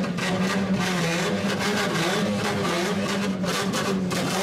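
Car engine running at low revs as a car rolls slowly past, its pitch wavering slightly with light throttle.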